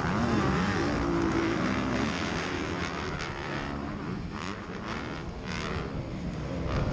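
Honda CRF250R's single-cylinder four-stroke engine revving hard under race load, its pitch rising and falling as the throttle opens and closes, with other motocross bikes close by.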